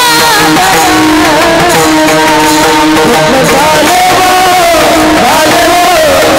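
Devotional kirtan music: a held, ornamented melody over a steady accompaniment with tabla-like drumming.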